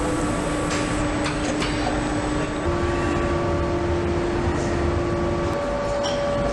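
Steady factory machinery hum on an electric-motor assembly line, carrying a few held tones. One tone steps up slightly in pitch partway through and drops out near the end, with a few light clicks about a second in.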